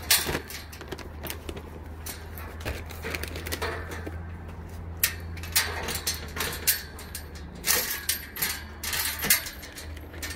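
Goats eating crunchy goat treats from a hand, with irregular crunches and rustles, a few sharper ones in the second half.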